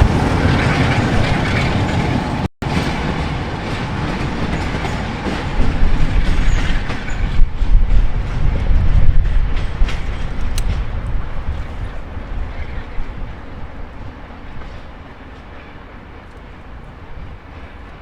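A train passing on the line, its wheels clattering over the rails, loud at first and then fading away over the last few seconds. The sound cuts out briefly about two and a half seconds in.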